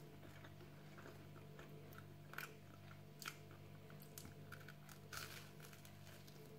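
Faint biting and chewing of a slice of toast close to the microphone, with a few sharper crunches among the smaller chewing noises. A steady low hum runs underneath.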